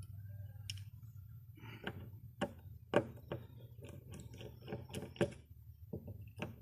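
A series of irregular sharp clicks and knocks, about a dozen over a few seconds, like small hard objects being handled, over a steady low hum.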